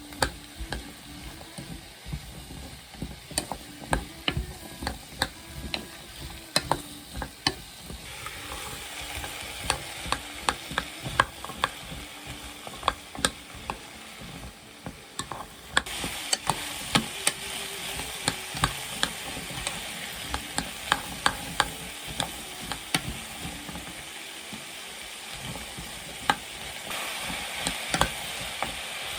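Food sizzling in a frying pan as it is stirred, with a utensil repeatedly clacking against the pan. The sizzle grows louder about eight seconds in and again about halfway through.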